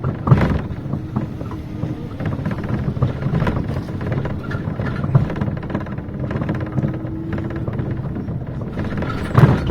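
City bus interior: the bus's engine and road rumble with steady rattling, and two louder short sounds, one just after the start and one near the end.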